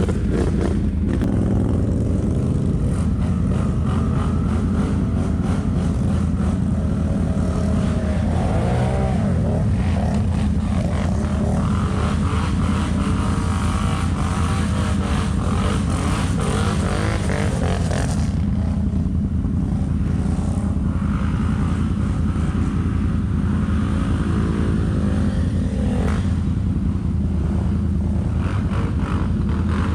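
ATV engine running steadily under load, its pitch rising and falling with the throttle, most clearly around eight to ten seconds in.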